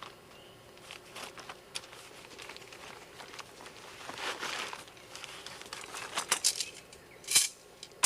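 Camping gear being handled: crinkling and rustling with scattered light clicks, a louder rustle about four seconds in, and a run of sharper clicks near the end, the loudest shortly before it ends.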